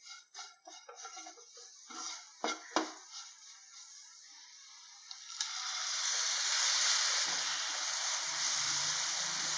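A spatula scraping and stirring fried onions and spices in a nonstick frying pan, with a couple of sharper knocks. About halfway through, a sudden loud sizzling hiss starts as curd goes into the hot oil and is stirred in, and it keeps going.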